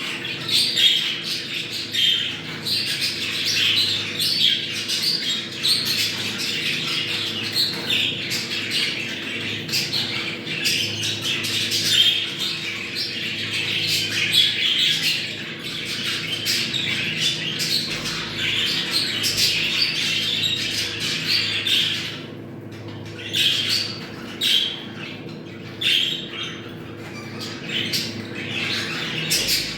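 Flock of budgerigars chattering: many overlapping warbles, chirps and squawks, thinning briefly to separate calls about two thirds of the way through. This is the kind of budgie chatter that breeders play to bring their birds into breeding condition.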